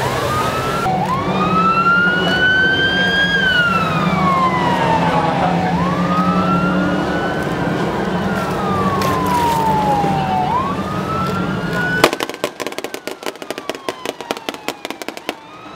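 A siren wailing in slow rising and falling sweeps over the steady drone of fast boat engines. About twelve seconds in, the engine drone drops away and a rapid, irregular run of sharp cracks follows.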